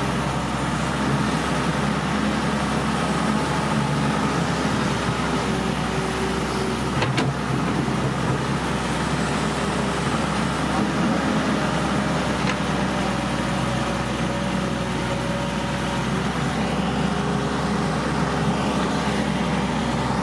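Caterpillar excavator's diesel engine running steadily under hydraulic load as the arm and bucket dig mud from a water-filled ditch, with one sharp click about seven seconds in.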